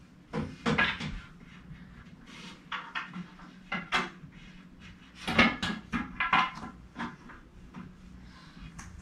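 Irregular clunks and rattling knocks from a crib's metal spring mattress frame and parts being handled and fitted during assembly, with the loudest cluster about five and a half seconds in.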